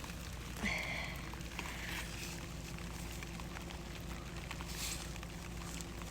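Light drizzle pattering on garden plants, with scattered small ticks and footsteps. A short high-pitched sound comes about a second in.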